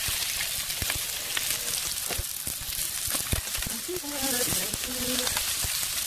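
Pieces of hairtail fish pan-frying in oil: a steady sizzle with scattered pops and crackles of spattering oil.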